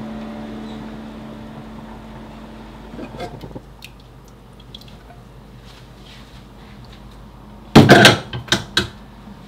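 A piano note fades away, then small clinks as a glass pot lid with a steel rim is lifted off the pot. About eight seconds in comes a loud clatter of three or four sharp knocks as the lid is set down.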